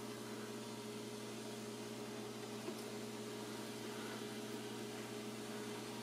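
Steady low hum of room tone, with a faint tick or two as cucumber spears are set into a glass jar.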